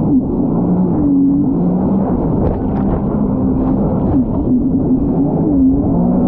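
Jet ski engine running, its pitch rising and falling several times as the throttle changes.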